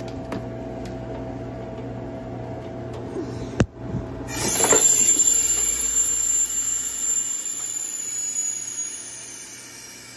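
Home freeze dryer running with a steady hum; about three and a half seconds in a click, then a loud hiss of air rushing into the vacuum chamber as the drain valve is opened at the end of the cycle, fading away over about five seconds.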